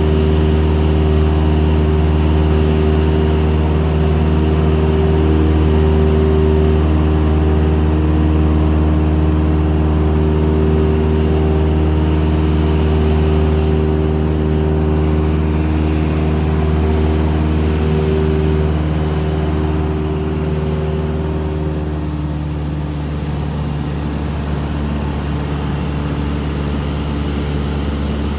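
Cessna 172 Skyhawk's piston engine and propeller droning steadily in cruise, heard inside the cabin, with a deep hum and a steady pitch. It becomes a little quieter from about twenty seconds in.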